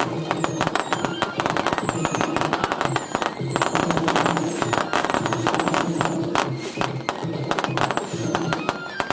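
Fireworks going off in a dense barrage of rapid crackles and bangs, with short high whistles that fall in pitch every second or so.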